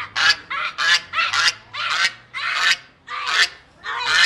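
Goose honking hard in a rapid series of harsh, rasping calls, about three a second at first and then more spaced out: agitated, hostile honking aimed at a person.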